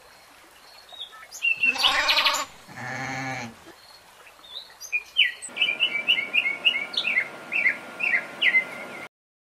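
Two bleats from a sheep or goat, the second lower and shorter, followed a couple of seconds later by a rapid run of small-bird chirps, about four a second, over a steady hiss that cuts off suddenly near the end.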